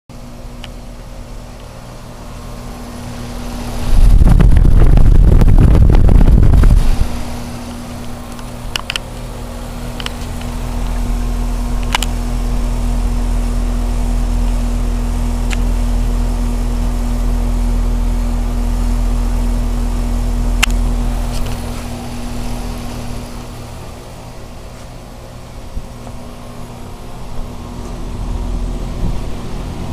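Carrier HVAC unit running with a steady hum and fan noise; the hum fades out about two-thirds of the way through. A loud rushing noise lasts about three seconds from roughly four seconds in, and a few sharp clicks are scattered through.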